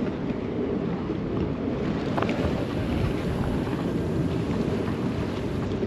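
Steady wind buffeting the microphone, a low rumble, with the sea faintly under it.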